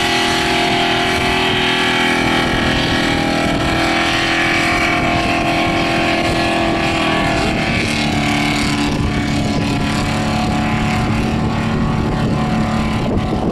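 Holden VR Commodore V8 held at high revs in a burnout, rear tyres spinning and smoking. The revs ease down a step a little over halfway through, then hold steady again.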